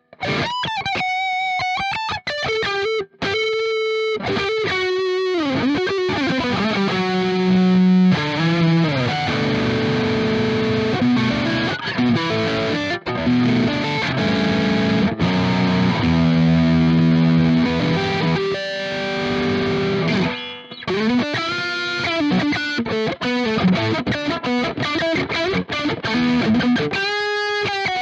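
Leeky X25 electric guitar played through high-gain amp models, Friedman and EVH 5153 blue channel boosted with an 808-style overdrive: distorted lead lines with string bends and vibrato, and a stretch of heavier held low chords in the middle.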